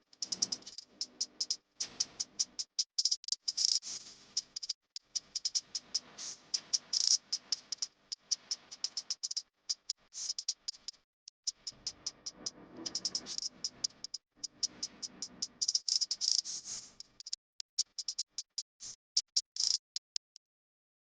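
A kitchen utensil clicking and rattling rapidly against a mixing bowl in quick runs, with short pauses between them. The clicking thins out and stops near the end.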